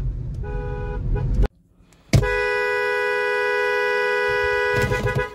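Multi-note chord air horn on a General Motors diesel locomotive: one blast sounds over low engine rumble and cuts off about a second and a half in. After a short silence and a click, a second steady chord blast of several tones holds to the end.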